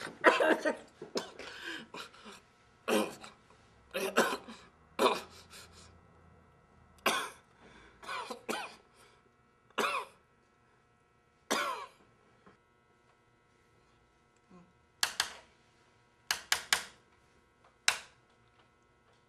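A man coughing and hacking repeatedly in short, harsh bursts, as if something he ate is caught in his throat, with a few seconds' pause after the middle before a last cluster of coughs.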